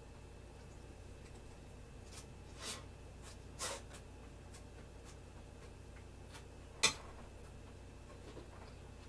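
A metal spoon clicking and scraping against a ceramic plate a few times during eating, the sharpest click about seven seconds in, over a low steady background hum.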